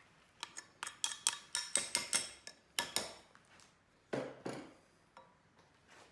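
Small metal parts clinking and tapping: a quick run of about a dozen sharp, ringing clicks, then two duller knocks about four seconds in.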